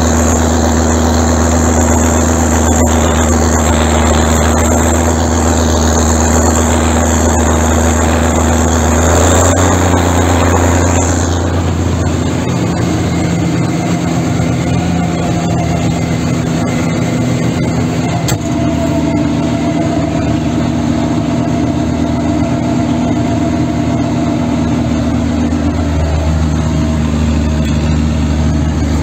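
Zetor ZTS 16245 tractor's diesel engine running steadily under load while driving a Huki 265 tractor-mounted snow blower throwing snow, heard from inside the cab. About ten seconds in a high hiss drops away and the engine note shifts, and it changes again a little later.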